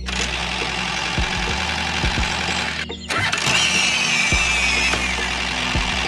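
An engine running steadily with a low hum, cut off briefly about three seconds in, then a high squeal that falls in pitch shortly after.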